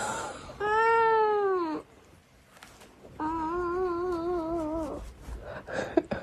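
Ginger cat giving two long, drawn-out meows: the first rises and then falls in pitch, and the second is held longer with a wavering pitch that slowly drops.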